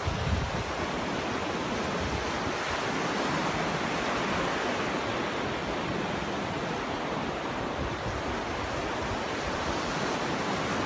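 Ocean surf washing onto a beach: a steady rushing of waves, with a brief low thump right at the start.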